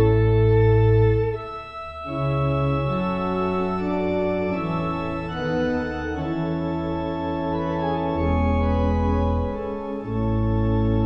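Organ playing slow, held chords, the bass note changing every second or two, with a short lull about two seconds in.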